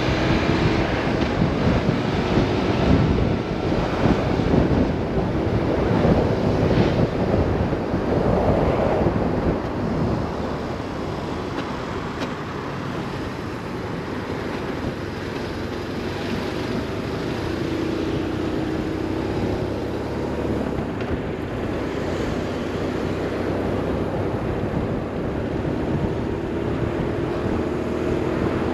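A BMW R 1150 RS's boxer twin running on the move under heavy wind noise on the microphone. The wind is gustier in the first ten seconds. The engine note rises and falls with the throttle and climbs again near the end.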